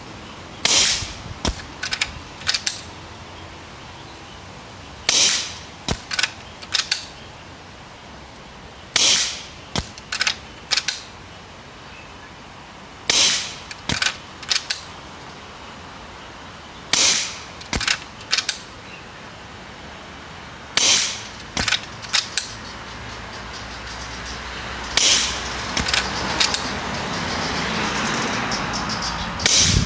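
Suppressed Skout Epoch .25 PCP air rifle firing eight sharp shots, one about every four seconds, each followed a second or two later by a few quieter clicks. A hiss rises in the last few seconds.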